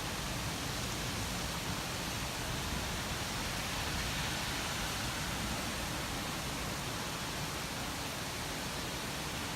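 Steady, even rushing hiss from a white-noise thunderstorm ambience track, with no thunderclaps.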